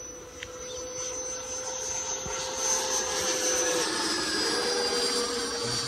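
Electric ducted-fan whine of an FMS BAE Hawk model jet in flight, growing louder over the first few seconds as it comes close, with the pitch dropping slightly about four seconds in as it passes.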